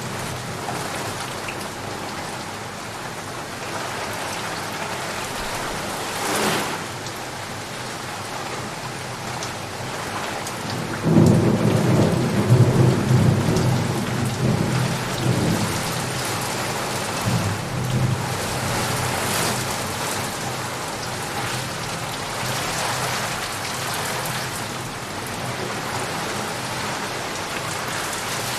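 Steady rain falling, with a thunderclap about eleven seconds in that begins suddenly and rolls on as a deep rumble for several seconds before fading back under the rain.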